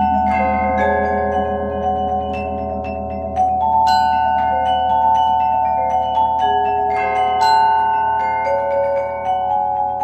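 Percussion ensemble playing a slow passage on mallet keyboard instruments: ringing notes held and overlapping, with a bright bell-like strike about every three to four seconds over a low rumble.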